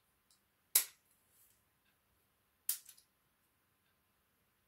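Vice grips (locking pliers) crimping a connector onto a ground wire: two sharp metallic snaps about two seconds apart, the first the louder.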